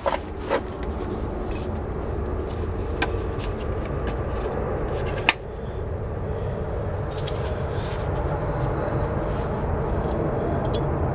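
Corded electric drill running steadily as a titanium-nitride bit drills into a broken bolt stuck in the transfer case output shaft, with a couple of sharp clicks of the bit catching, about 3 and 5 seconds in.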